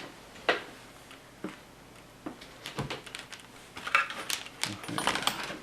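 Scattered light clicks and knocks from hands handling a computer speaker and plugging in its leads: a few isolated clicks, then a quicker run of clicks near the end.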